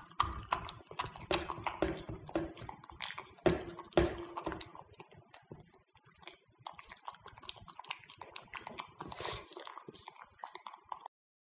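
Italian greyhound eating raw minced duck from a pottery bowl: wet chewing, smacking and licking with many irregular small clicks. It grows fainter about halfway through as the dog licks the nearly empty bowl, and it cuts off suddenly near the end.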